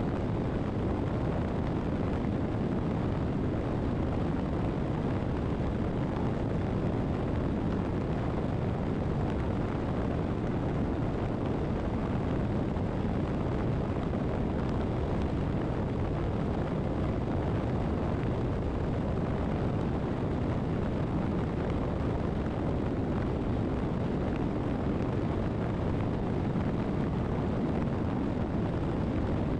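Motorcycle cruising at highway speed, heard from a camera mounted on the bike: a steady, low, even rush of wind on the microphone mixed with engine and tyre noise.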